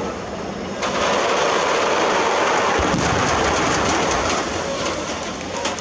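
Aerial fireworks crackling in a dense, steady hiss that sets in suddenly about a second in.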